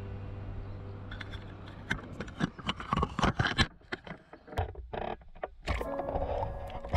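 Background music fades out. It gives way to a few seconds of irregular clicks and knocks with a short quiet gap, and tones come back near the end.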